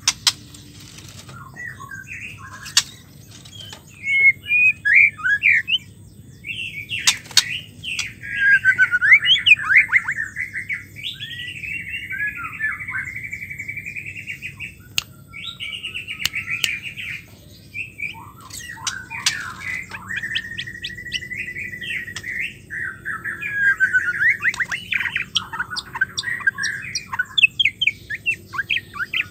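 White-rumped shama singing: a string of varied phrases of whistles, warbles and fast chattering notes separated by short pauses, including long drawn-out whistled notes about a third of the way in and again past the middle.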